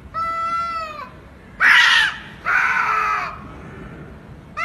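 Two cats yowling at each other in a standoff before a fight: a drawn-out, steady yowl, then two louder, harsher screeching calls, the first of these the loudest, with another yowl starting at the very end.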